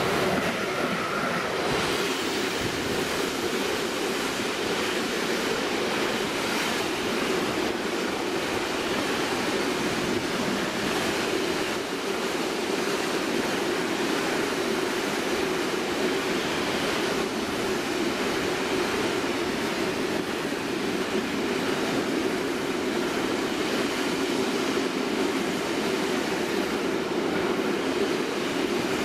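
Freight train of bogie hopper wagons rolling past at speed: a steady, loud rumble of wheels on rail. A thin high whine fades out about a second in, as the Class 186 electric locomotive passes.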